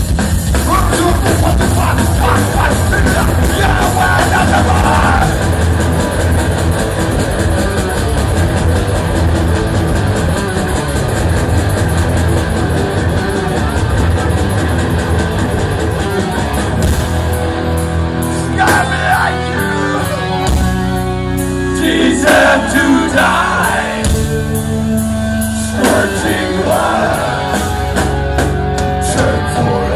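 Thrash metal band playing live: distorted electric guitars, bass and drums at full volume. From a little past halfway, the playing turns into a stop-start passage of held chords broken by short gaps.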